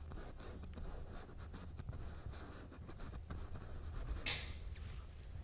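Bristle brush scrubbing dark oil paint onto canvas: faint, irregular scratchy strokes, with one louder swish about four seconds in.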